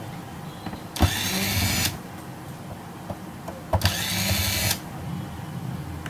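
Electric screwdriver running in two short bursts of about a second each, backing screws out of a camcorder's housing.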